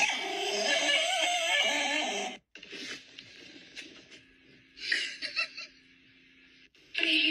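A small dog whining and grumbling in a wavering, pitch-bending voice for about two seconds, cutting off abruptly. The rest is quiet, with a faint steady hum and a brief rustling burst about five seconds in.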